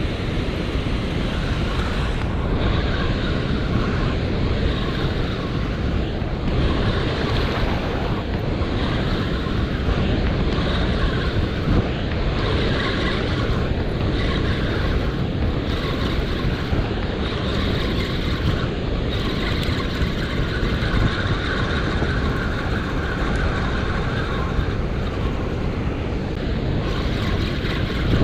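Steady roar of water rushing through a dam spillway, with wind on the microphone.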